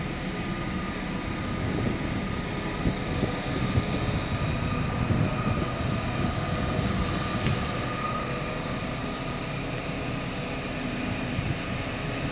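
Wind rumbling unevenly on the microphone over a steady mechanical hum of engines.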